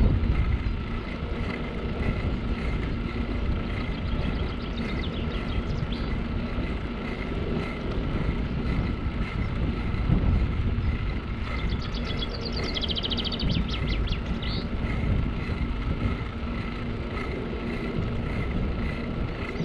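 Steady riding noise from a bicycle on an asphalt cycle path: wind on the microphone and tyre rumble, with a faint steady hum. A bird trills briefly a few seconds in, and again for longer past the middle.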